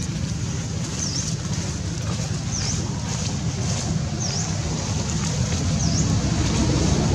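Wind rumbling steadily on the microphone, with a short high-pitched call that dips and rises in pitch, repeating about every second and a half.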